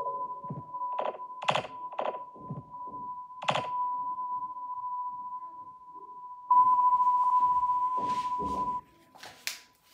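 About five dull thunks in the first four seconds, with a steady high tone running under them; the tone becomes much louder about two-thirds of the way in and cuts off suddenly near the end.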